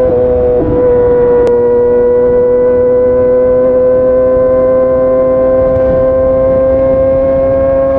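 Kawasaki ZX-25R's 250 cc inline-four running at high revs through a Yoshimura R55 slip-on exhaust, a steady high engine note held in one gear, its pitch climbing slowly as the bike pulls.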